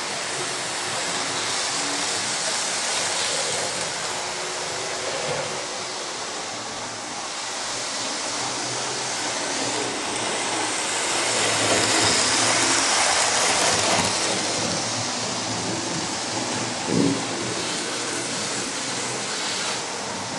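Model trains running on the layout's track, a steady rushing rumble of small motors and wheels on rail that swells louder about halfway through. A single short knock comes near the end.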